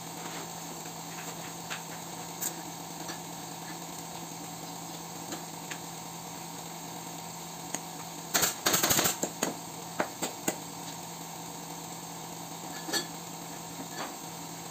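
Pneumatic staple gun firing a quick run of staples through upholstery fabric about eight seconds in, followed by a few single shots, with a steady low hum behind it.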